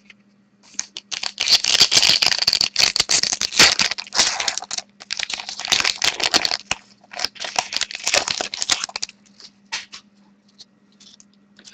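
Crinkling and rustling of a trading card pack being handled and opened and its cards slid out, in dense spells with short gaps, thinning to a few scattered light clicks near the end. A faint steady hum runs underneath.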